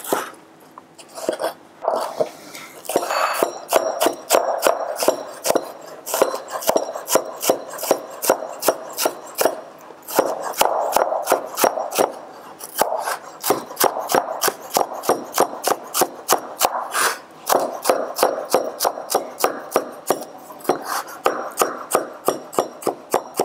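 Chef's knife chopping yellow bell pepper into small dice on a cutting board: quick, even knife strikes, about three a second, starting a few seconds in and running on steadily.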